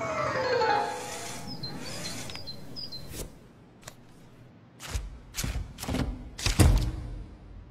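Background music fades out at the start, followed by a few faint high chirps. Then comes a series of sharp clicks and knocks, loudest near the end, from hands handling and snapping a small plastic gadget together.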